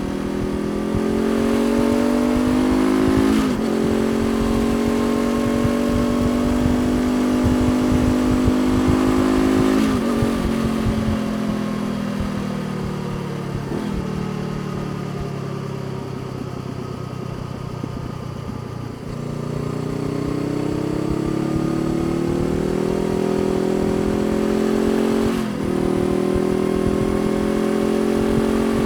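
Honda CBR500R's parallel-twin engine under way, pulling up in pitch through the gears with a short break at each gearchange. In the middle stretch the engine note falls away for several seconds, then climbs again, with one more shift near the end.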